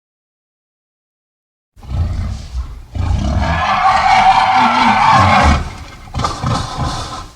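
Classic dinosaur or giant-monster roar sound effect: a low growl about two seconds in, then a long, loud roar of nearly three seconds, and a shorter second roar near the end.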